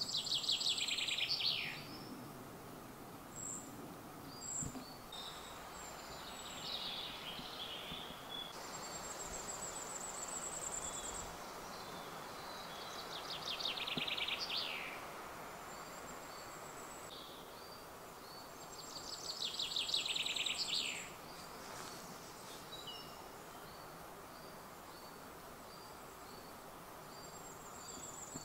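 Woodland birdsong. A loud descending trilled song phrase comes three times, with fainter high, thin trills and calls in between, over a faint steady hiss.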